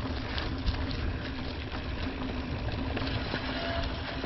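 Mountain bike rolling along a dirt singletrack trail: steady tyre and wind rush with small ticks and rattles from the bike.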